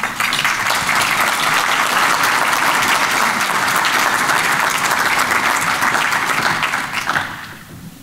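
Audience applauding for about seven seconds, dying away near the end.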